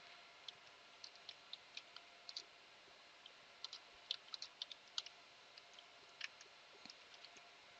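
Faint, irregular clicking of keys on a computer keyboard, sometimes in quick runs and sometimes with pauses between them, over a quiet room hum.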